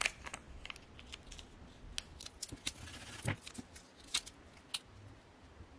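Transfer tape and its paper backing being peeled and handled by hand: scattered light crackles and ticks, with a soft thump about three seconds in.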